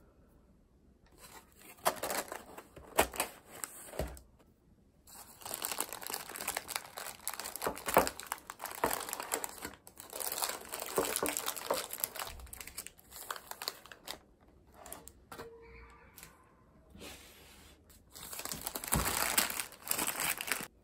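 Parchment baking paper crinkling and rustling in stretches as it is handled and pulled, with a few sharp knocks.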